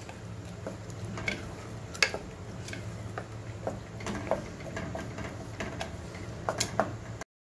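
A wooden spatula stirring thick dal in an aluminium pressure cooker, with irregular light knocks and scrapes against the pot, over a steady low hum.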